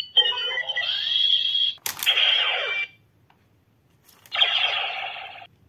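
Recast DX Decadriver toy belt playing Kamen Rider Faiz card sound effects through its small speaker: tinny electronic jingles in short bursts. A sharp plastic click of the belt comes about two seconds in, and another sound clip plays near the end.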